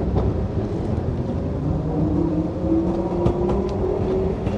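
W-class tram running along ballasted reserve track as it approaches: a steady rumble with a motor whine that rises slowly in pitch, and a few sharp clicks from the wheels on the rails about three seconds in.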